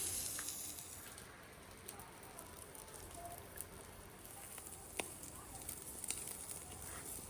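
Fire in a mangal grill crackling: a steady hiss with scattered sharp pops, the clearest about five seconds in.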